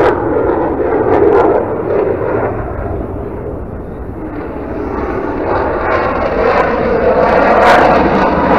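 Airplane flying over, a steady engine roar that dips about halfway through and builds again toward the end.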